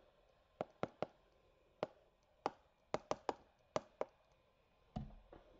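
Pen stylus tapping and clicking on a tablet screen while handwriting: about a dozen sharp, irregular clicks, with a soft low thump near the end.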